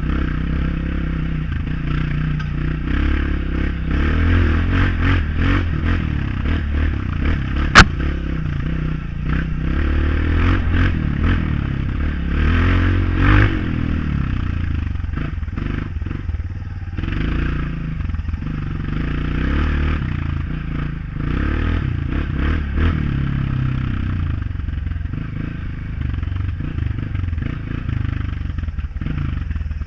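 Honda CRF off-road motorcycle engine running under way, its engine speed rising and falling. A single sharp knock comes about eight seconds in.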